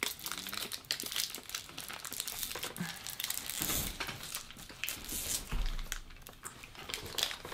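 Small wrappers on individually wrapped hard candies being twisted and pulled open by hand: a continuous run of quick crinkles and crackles.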